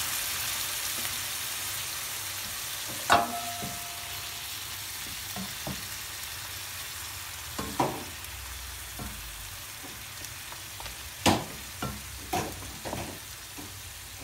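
Chicken pieces, mushrooms and onion sizzling in soy sauce in a nonstick frying pan, the sizzle easing slowly. A wooden spatula stirs and knocks against the pan several times, loudest about three seconds in.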